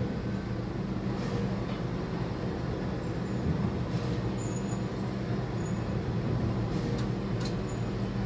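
Steady low machine hum from the tower crane, heard from its cab while it holds a load, with a few faint clicks and ticks.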